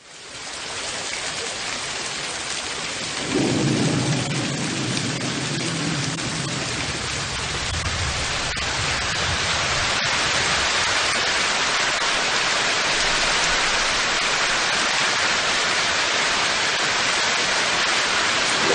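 Heavy rain falling steadily, a constant hiss. About three seconds in, a low rumble of thunder starts suddenly and dies away over the next several seconds.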